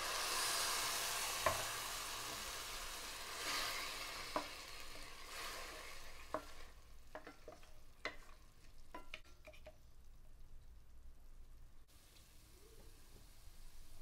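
Tamarind water hitting a hot oil tempering of shallots, peanuts and chillies in a pan: a loud hiss that dies away over about six seconds. Then a wooden spatula knocks against the pan a dozen or so times as the mixture is stirred.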